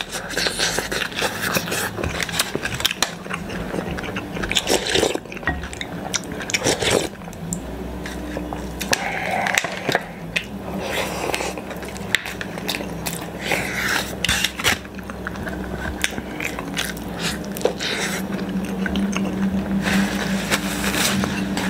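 Close-miked eating: chewing and wet mouth sounds with many short crisp clicks, over a steady low hum.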